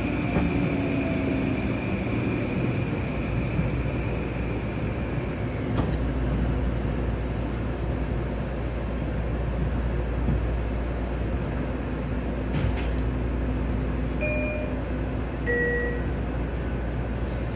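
Inside a Long Island Rail Road electric train: the motors' whine falls and fades over the first six seconds as the train slows, leaving a steady low hum. A short two-note chime, high then lower, sounds about fourteen and a half seconds in.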